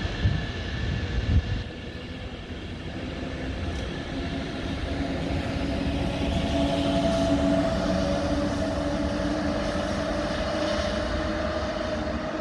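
Train running at a station: a steady low rumble with two low thumps in the first second and a half, then a steady two-tone whine that grows in from about halfway.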